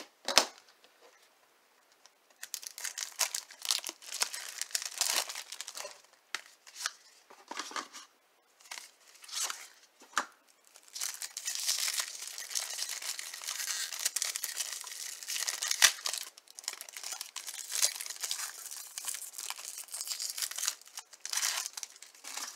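A trading-card pack wrapper being torn open and crinkled by hand, in uneven bursts of tearing and rustling, with a couple of short sharp snaps.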